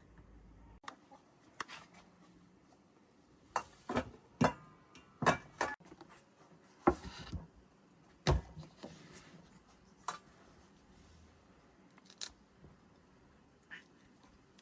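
Irregular knocks, clicks and clatters of kitchen work, like utensils and cookware being handled. The sharpest come in a cluster from about four to eight seconds in, with a short scrape among them.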